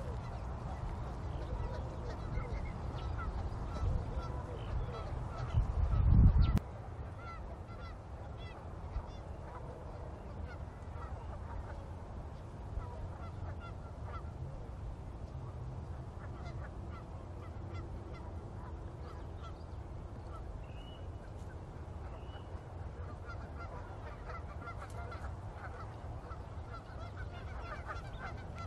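Birds calling repeatedly in the background, over a low rumble that cuts off suddenly about six and a half seconds in.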